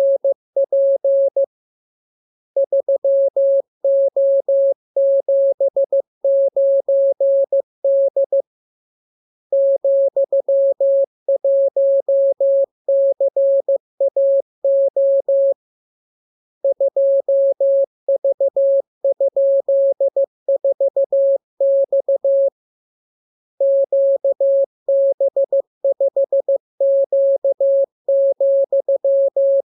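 Morse code practice signal: a single steady tone keyed on and off into dots and dashes, sent as runs of characters about six seconds long with pauses of about a second between them.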